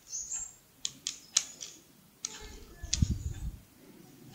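A few sharp, separate clicks and taps, with a brief low rumble of handling about two to three and a half seconds in.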